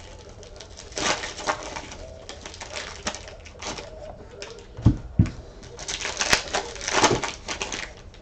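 Irregular clicking and crackling handling noise, with two low thumps about five seconds in.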